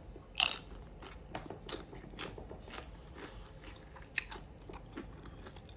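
Close-miked chewing of food, with one sharp crunchy bite about half a second in and then irregular small crunching and mouth clicks.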